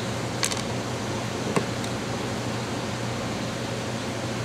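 Steady background hum with a few short clicks from needle-nose pliers being picked up and clamped onto a fishing-hook wire leader: a small cluster about half a second in and a sharper, louder click about a second and a half in.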